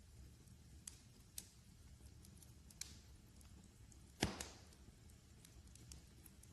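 Wood fire in a fireplace crackling: scattered small pops and snaps over a faint low rumble, with one louder pop about four seconds in.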